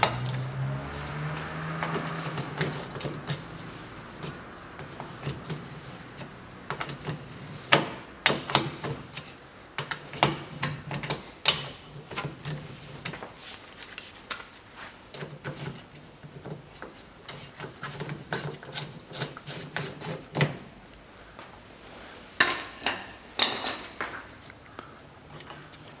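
Ratchet and socket clicking on the rear hub nut as it is unscrewed from the stub axle, with scattered sharp metallic clinks and knocks, the loudest about a third of the way in and again near the end.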